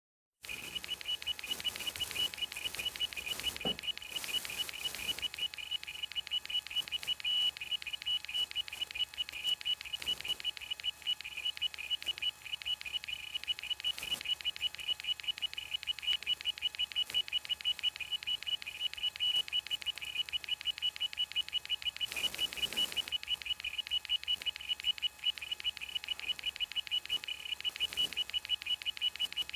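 An iPod's small hard drive making rapid, evenly repeating high-pitched beeping pulses, the noise of a drive struggling with bad sectors.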